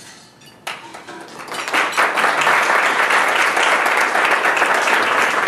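Audience applauding: a few scattered claps, then the clapping fills in about two seconds in and holds steady.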